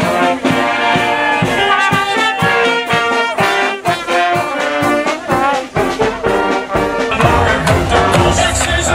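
A live street band of saxophones and brass playing a lively tune over a regular drum beat. About seven seconds in, it gives way to different music.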